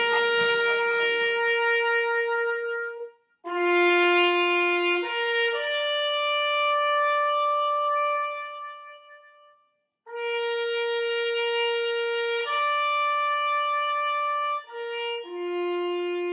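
Recorded solo trumpet playing a slow melody of long held notes, with short breaks between the phrases.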